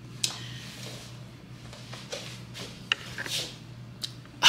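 Quiet room with a low steady hum, broken by a few light clicks and soft rustles of clothing as a person moves and steps up to the camera.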